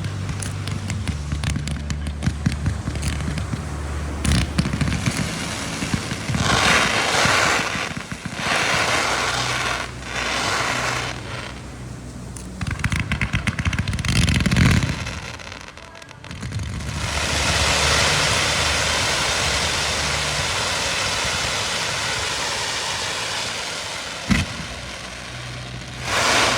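Fireworks going off: repeated bursts of crackling, then a long steady hissing spray, with one sharp bang near the end. A steady low engine-like hum runs underneath.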